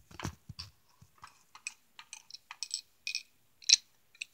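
Light, scattered clicks and taps of small plastic toys being handled, with a few duller knocks about the first half-second.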